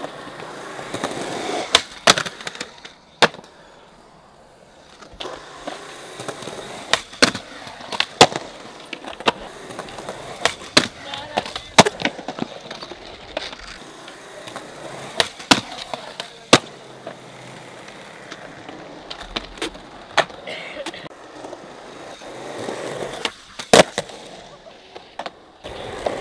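Skateboards rolling on concrete, with many sharp clacks scattered throughout as boards pop, land and slap down on the ground.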